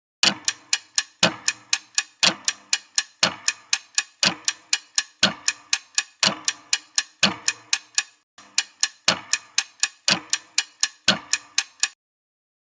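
Clock-ticking sound effect, about four ticks a second with a stronger tick on each second, used as a countdown timer for a quiz question. It breaks off briefly about eight seconds in, then runs on before stopping.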